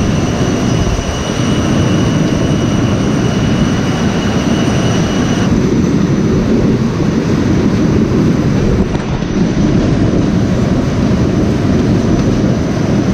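Potato seed cutter and its conveyors running, with a loud steady clatter of seed potatoes tumbling through the machine. A faint high whine runs along with it and stops about five seconds in.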